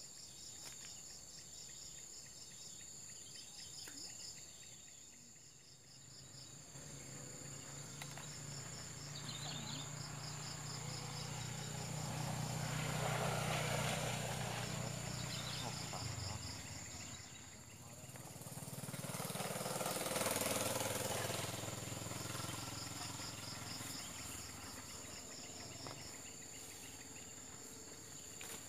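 Insects singing steadily in a high pulsing trill, while a motor vehicle passes twice, its engine sound swelling and fading, loudest around the middle and again about two-thirds of the way through.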